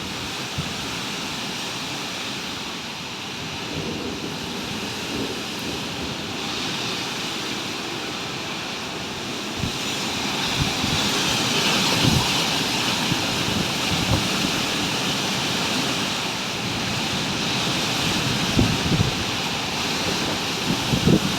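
Violent gusty wind rushing steadily, with low thumps of wind buffeting the microphone; the rush grows stronger about ten seconds in.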